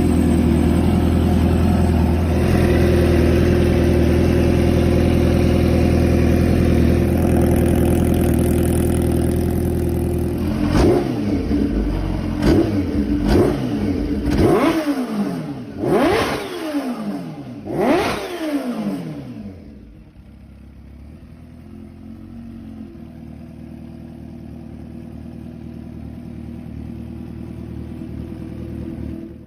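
Kawasaki H2R's supercharged 998 cc inline-four running steadily at a held speed. It is then blipped about six times in quick succession, each rev rising sharply and falling back, before settling to a quieter, steady idle.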